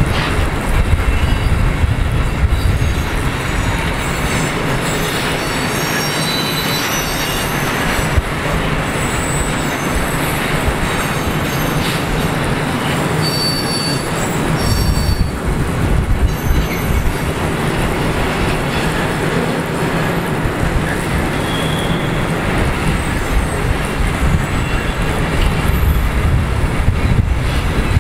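Freight train of loaded container wagons rolling past, the wagons rumbling and rattling over the rails, with high wheel squeal on the curve coming and going.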